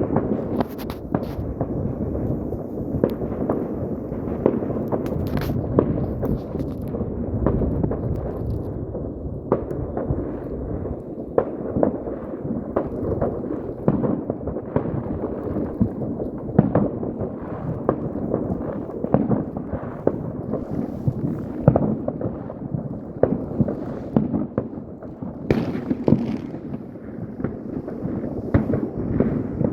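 Many New Year's fireworks going off at once: a dense, unbroken stream of overlapping bangs and crackles, mostly dull and low, with a few sharper cracks standing out.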